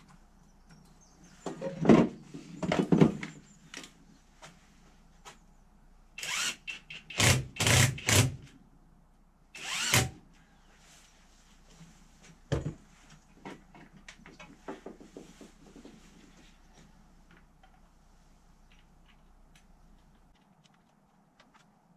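Workshop tool noise in three clusters of short bursts with knocks and clatter between them, and a single sharp knock about halfway through. A low steady hum underneath stops shortly before the end.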